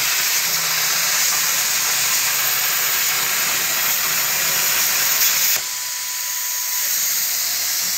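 CNC plasma cutter torch cutting steel sheet: a loud, steady hiss of the arc and the air. About five and a half seconds in, the arc cuts off and the hiss drops a little quieter.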